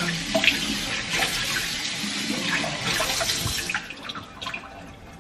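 Kitchen tap running, a steady rush of water with a few light clinks, that stops about four seconds in.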